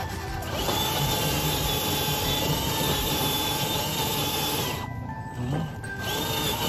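Electric drive motor and geartrain of a scale RC crawler truck whining at a steady pitch as it climbs under load. The whine cuts out for about a second near the end, then starts again.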